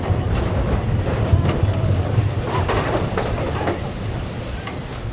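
Mine-train roller coaster cars running along the track: a steady low rumble from the wheels on the rails, with scattered clacks and knocks from the cars.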